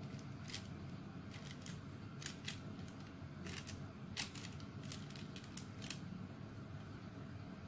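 Silicone spatula scraping and tapping against a metal pan while thick chocolate batter is smoothed level: a string of short, irregular clicks over a low steady hum.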